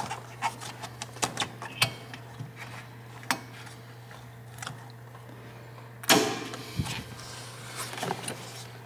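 Hands working a rubber dust boot off the back of a car headlight housing: a run of small clicks and rubs of rubber against plastic, and a louder rubbing scrape about six seconds in. A steady low hum lies underneath.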